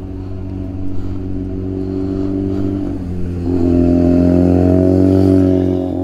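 Motorcycle engine idling, then revved and held at higher revs for a couple of seconds about halfway through before it drops back toward idle.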